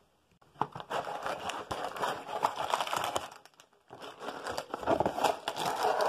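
Clear plastic bags of Lego pieces crinkling and rustling as they are handled and pulled out of an opened cardboard box, with a brief pause a little past halfway.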